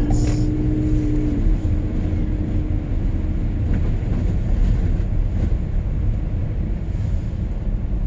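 Steady engine and road rumble inside the cabin of a moving car. A low hum dips and fades out about a second and a half in.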